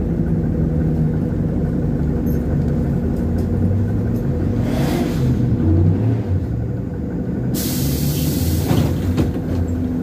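Cabin noise inside a moving ZiU-682G trolleybus: a steady low rumble with a constant hum. Near the end, a loud hiss of compressed air from the pneumatic system lasts about two seconds.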